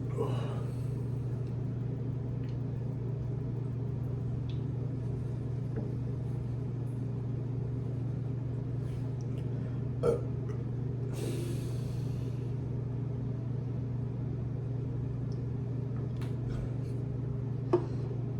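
A steady low hum, with a single short burp from a person about ten seconds in, followed by a brief breathy hiss.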